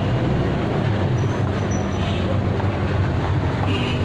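Loud, steady rumble of engine traffic with a constant low hum underneath. A brief high-pitched tone sounds near the end.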